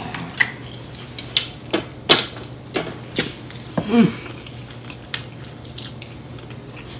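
Mealtime clatter while eating fried chicken wings: irregular sharp clicks and taps of utensils and food containers, with chewing, and a short low vocal sound about four seconds in.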